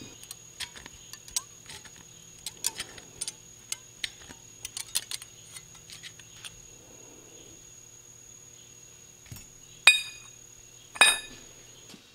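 Small mild-steel machined parts clinking and ticking as they are handled, with light scraping ticks from hand-deburring the ring's edge. Two louder ringing clinks near the end.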